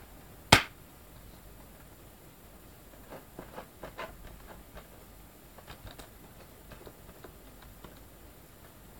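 Plastic DVD cases being handled: one sharp snap about half a second in, then a run of small clicks and taps.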